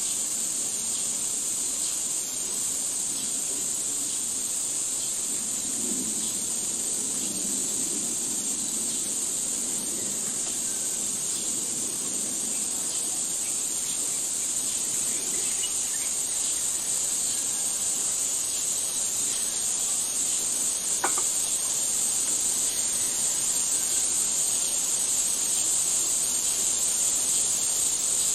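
Steady, high-pitched chorus of insects buzzing without a break, with one short sharp click about three-quarters of the way through.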